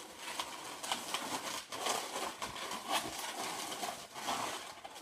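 Inflated latex 350 twisting balloon being squeezed and twisted by hand: irregular rubbing and scraping of the latex against the hands and against itself.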